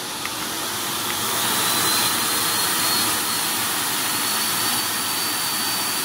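PETACARE 2,400-watt professional dog force dryer blowing: a loud, steady rush of air with a thin high whine from the blower. It rises in level over the first two seconds, then holds steady.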